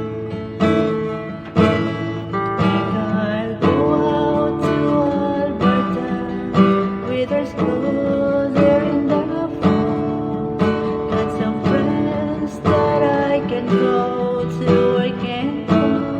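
Acoustic guitar strummed in a steady rhythm, about one stroke a second, with a sung melody over it from a few seconds in.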